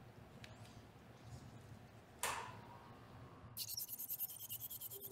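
A single sharp knock about two seconds in. Then, from just past halfway, the Tenex Health TX system sounds its signal: a high, rapidly pulsing electronic tone with low beeps under it, marking that the system has shut down and is delivering no ultrasonic energy, aspiration or irrigation.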